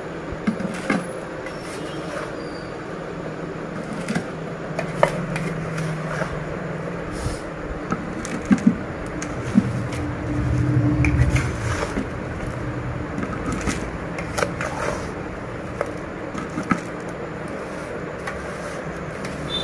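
Slotted metal ladle scraping and knocking against a metal platter as mango pickle is scooped into a plastic jar, giving scattered clicks and knocks over a steady low hum. A low rumble swells for about two seconds near the middle.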